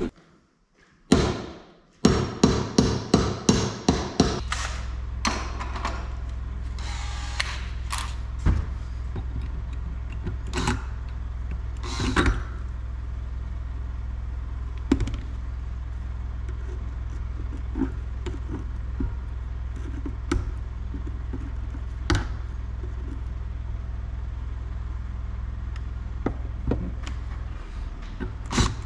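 A workshop power tool's motor running steadily, with a quick string of sharp knocks before it starts and a few single knocks while it runs.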